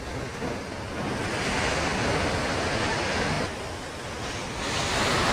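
Waterfall's rushing water, a steady dense hiss that drops away for about a second partway through.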